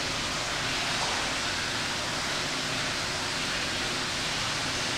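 Steady, even rushing noise, like running water, with a faint low hum underneath and no distinct events.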